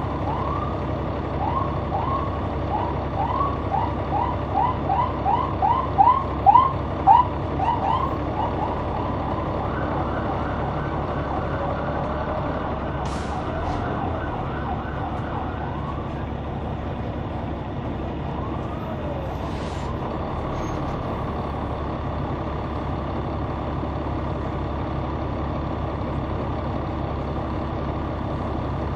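The Caterpillar C9 diesel of a Neoplan AN459 articulated transit bus running steadily, heard from on board. Over the first eight seconds comes a quick run of short rising chirps, about two to three a second, loudest around six to seven seconds in.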